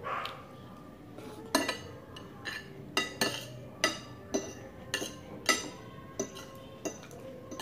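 Metal spoon and fork clinking and scraping against a ceramic plate, about a dozen irregular sharp clinks, as the last of the food is scooped up from a nearly empty plate.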